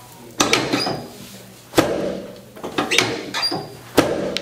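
Chiropractic adjustment thrusts on a patient lying face down on the treatment table: four sharp thuds about a second apart, each trailing off briefly.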